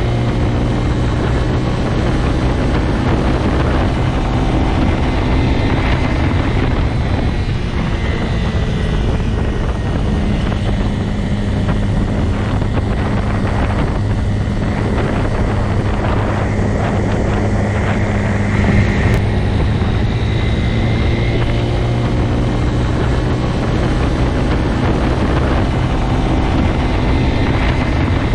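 Motorcycle engine running at a steady speed, a low even drone that holds nearly the same pitch throughout.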